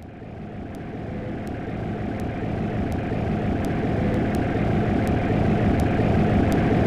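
Circuit-bent toy music made from a modified Hula Barbie doll and a voice memo recorder: a low, rough, engine-like drone fading in and growing steadily louder, with faint sharp clicks ticking about every 0.7 seconds.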